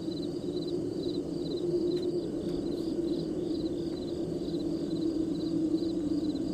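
Crickets chirping in an even rhythm, about two short trilled chirps a second, over a louder steady low drone.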